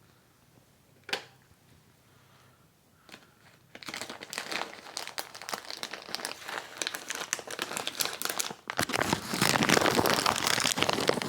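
Crinkly plastic treat packet being handled and rustled, starting about four seconds in and getting louder near the end. A single faint click comes about a second in.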